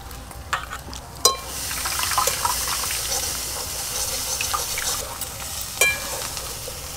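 Coconut milk being hand-squeezed from grated coconut into a steel bowl: a steady splashing trickle as the milk runs back into the bowl, with a few sharp knocks of hand and pulp against the metal.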